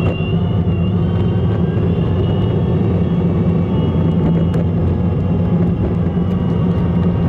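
Steady low rumble of a car driving, with an even engine and road hum and a faint high whine above it.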